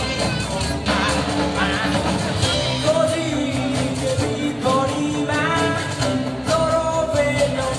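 Live band playing a song: a young male voice singing over a drum kit and guitars.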